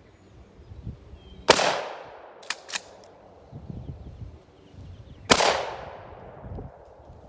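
Two shots from an Akkar 612 pump-action 12-gauge shotgun firing 1.5-inch low-recoil buckshot shorties, about four seconds apart, each report trailing off in a long echo. Between the shots the pump is worked back and forward with two quick clacks.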